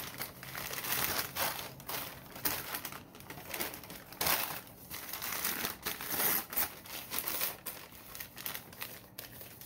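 Crumpled newspaper packing being crinkled and peeled off a cup by hand, an irregular rustling and crackling of paper that comes and goes.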